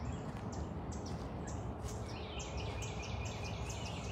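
High chirping calls repeating several times a second, with a faster pulsing trill joining about halfway through, over a steady low rumble.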